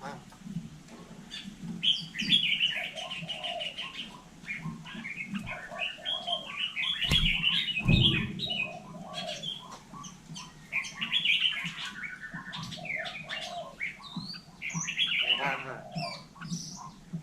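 Hill myna chattering: a busy run of chirps, squawks and whistled notes, with two low knocks about seven and eight seconds in.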